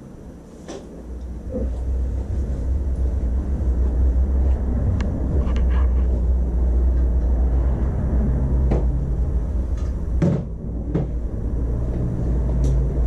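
Hand tools and loose metal parts clicking and knocking now and then as a Yamaha YZ250 motocross bike is taken apart, over a steady low rumble.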